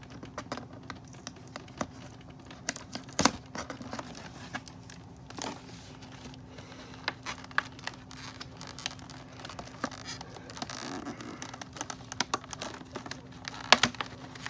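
Cardboard and plastic doll packaging rustling and crinkling as the doll is worked free of its box fastenings, with scattered sharp clicks and snaps, the strongest about three seconds in and again near the end.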